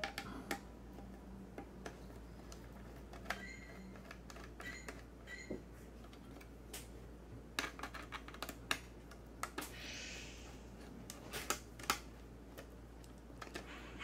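Faint, scattered small clicks and ticks of a precision screwdriver working out the screw of a motherboard's M.2 SSD heatsink, with light taps of the tool and fingers on the metal.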